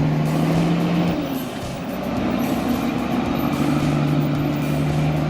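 A large engine running steadily. It eases off about a second in and picks back up some two seconds later.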